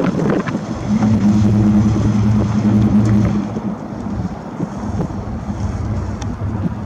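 Chevy 350 small-block V8 of a 1950 Chevrolet Fleetline driving past at low speed and pulling away. Its exhaust note holds steady for a couple of seconds, then drops in loudness as the car moves off.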